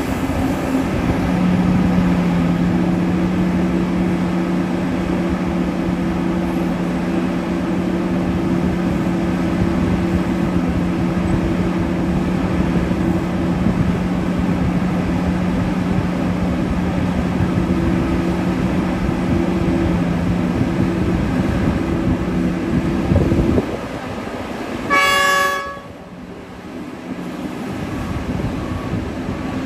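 Heavy mining machinery's diesel engines running with a steady droning hum, which drops away suddenly about 23 seconds in. About a second and a half later comes a single short horn blast.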